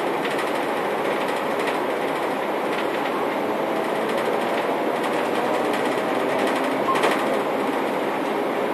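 Inside a Škoda 14Tr trolleybus on the move: steady running noise with small rattling clicks from the body and fittings, and one sharper knock about seven seconds in.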